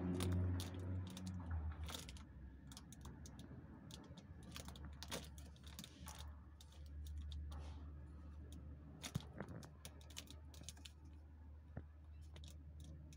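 Faint, scattered small clicks and light rustles of a cat's paws and claws moving on a cardboard box, over a steady low hum.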